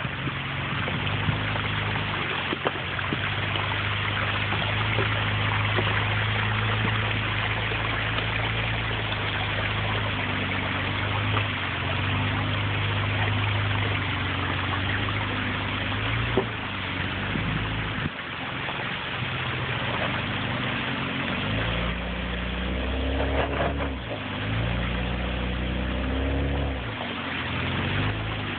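Toyota Land Cruiser 80 series engine running at low revs as the truck crawls up a rocky waterfall, steady for a long stretch, then rising and falling in pitch several times near the end as the driver works the throttle over the rocks.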